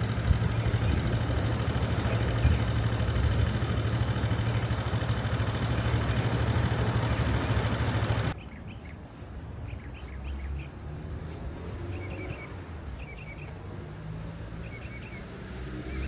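A motor vehicle's engine running close by with a steady low hum, which stops abruptly about eight seconds in. A much quieter background follows, with a small bird chirping several times.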